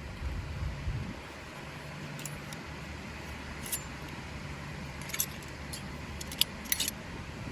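A handful of light, sharp clicks and clinks, scattered and unevenly spaced, over a steady background hiss.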